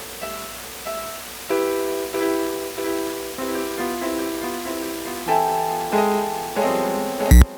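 Yamaha PSS-A50 portable keyboard: a short phrase of plucky notes repeats on a loop, then louder held notes come in over it about a second and a half in, playing a slow melody. A heavy drum-like thump enters near the end.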